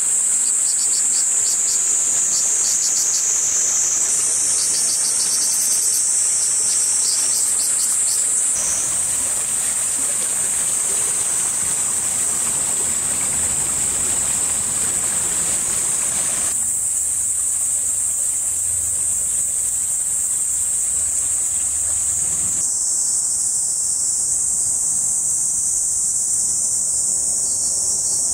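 A steady, high-pitched chorus of chirring insects over the rush of a shallow stream flowing through the channel; the water sound changes abruptly several times.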